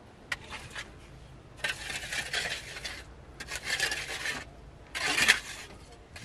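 Digging tool scraping through dry earth and gravel: three long rasping scrapes, the first beginning about a second and a half in, after a couple of light clicks.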